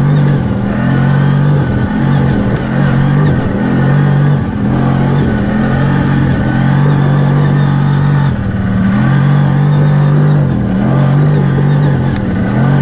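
CFMoto X10 ATV's 1000 cc V-twin engine running under throttle, its pitch dropping and climbing back several times as the throttle is eased off and opened again.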